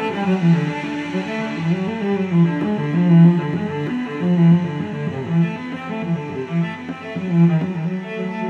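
Background music: a slow, low melody on a bowed string instrument.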